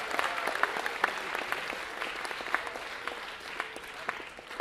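Audience applauding after an introduction, the clapping thinning out and fading away.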